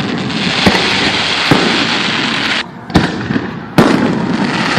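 Fireworks display: a dense, continuous crackling of bursting shells, with four sharp booms from shells exploding overhead, the loudest about four seconds in, and a brief lull just before the third.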